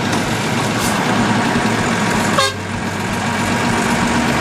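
Mercedes-Benz Unimog 1300 truck's diesel engine running steadily on the move, heard from inside the cab. About halfway through, a short horn toot sounds, and the engine gets a little quieter right after.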